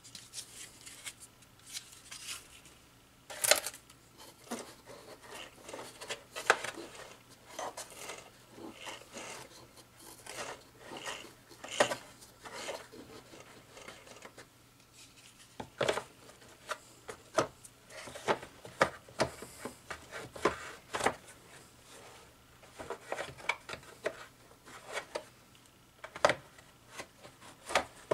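Plastic parts of an upright vacuum's base being handled and fitted together by hand: scattered clicks, light knocks and rubbing scrapes of plastic on plastic.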